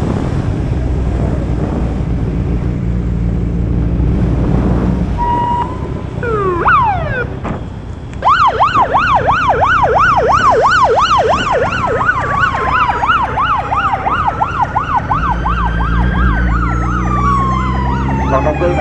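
Escort motorcycle siren: a few short tones and quick sweeps, then from about eight seconds a rapid yelp over a slower falling and rising wail. The motorcycle engine runs underneath at the start and again near the end.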